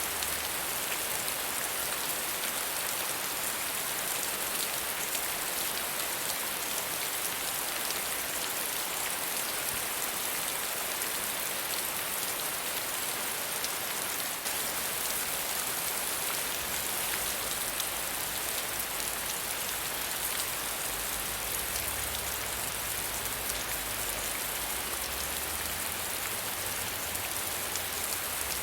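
Steady soft rain falling, an even hiss of many drops landing on a surface.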